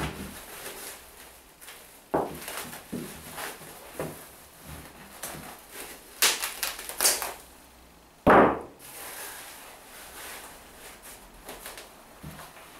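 Cling film being pulled off its roll and wrapped around a plastic seed tray, heard as a series of short crackling pulls at irregular intervals, with one louder thump about eight seconds in.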